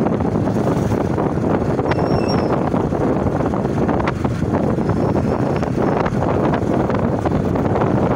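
Wind rushing over the microphone on a moving motorcycle, with the bike's engine and road noise running steadily underneath.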